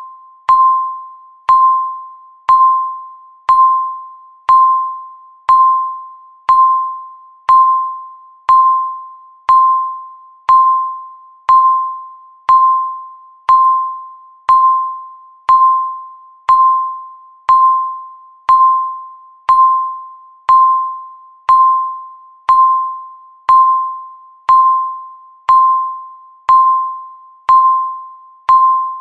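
Countdown-timer beep sounding once every second: a single steady-pitched electronic tone that starts sharply and fades out, marking off each second left on the count.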